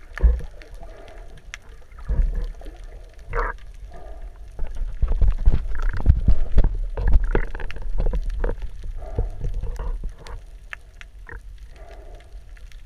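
Muffled underwater sound from a camera held just below the surface: water surging and knocking around the camera in uneven low rumbles, loudest through the middle, with gurgling and brief clicks.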